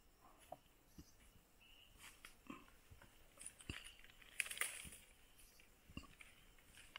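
Faint footsteps on a forest trail, about one step every second, with a short rustle about halfway through.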